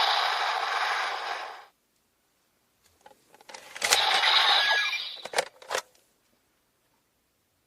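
DX Kamen Rider Zero-One Shining Hopper toy playing electronic sound effects through its small speaker: a loud pulsing effect cuts off about two seconds in. After a pause comes a sharp plastic click and a short electronic effect, then two more sharp clicks.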